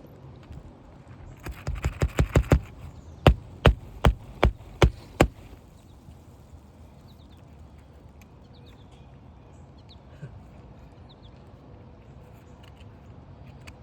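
Hammer work on an asphalt-shingle roof: a quick run of about eight light taps, then five hard, sharp blows about half a second apart.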